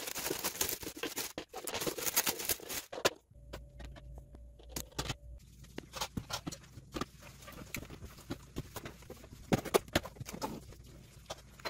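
Plastic wrapping crinkling as it is pulled off a clear plastic turntable for about the first three seconds, then, after a short lull, scattered light taps and clicks as a spray can and plastic seasoning jars are set down and shifted on the turntable.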